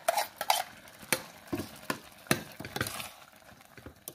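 Steel ladle clinking and scraping against a stainless steel pot as thick ground coconut paste is stirred into a simmering curry, with irregular sharp knocks about every half second.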